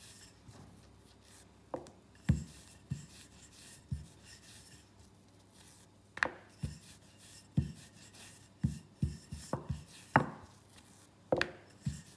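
Wooden rolling pin rolling out poori dough on a marble board: irregular knocks and taps as the pin bumps and rocks on the stone, with soft rubbing between them and a few louder knocks.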